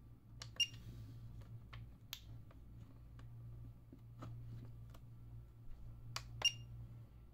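Button and scroll-wheel clicks on a ToolkitRC Q6AC battery charger as it is worked through its menu, about nine sharp clicks, two of them with a short high beep from the charger, about half a second in and near the end. A low steady hum underneath.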